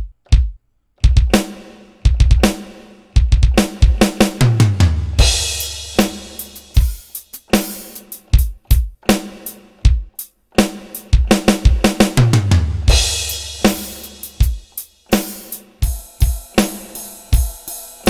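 Korg Triton Extreme's Standard drum kit played from the keyboard: a few single drum hits, then a kick, snare and hi-hat pattern with a run of toms falling in pitch and a crash cymbal, done twice.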